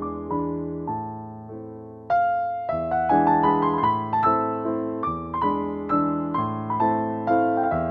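Background music: a gentle piano melody of single notes that each fade away, becoming louder and busier about two seconds in.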